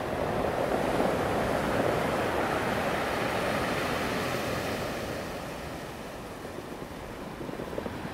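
Ocean waves breaking and washing in: the surf swells to its loudest about a second in, then the wash eases off over the second half.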